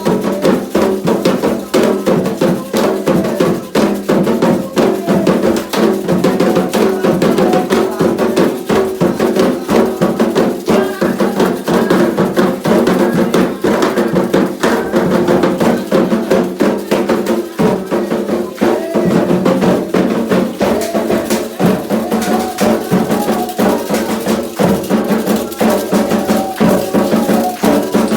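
Candomblé atabaque drums playing a fast, continuous rhythm with a struck bell or wood-block part, over sustained sung or pitched lines.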